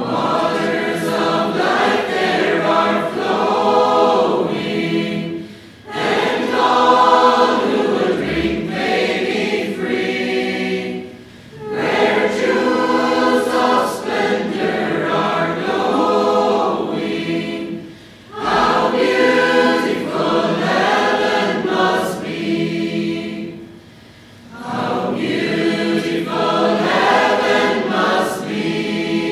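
Choir singing, in phrases about six seconds long with a short pause between each.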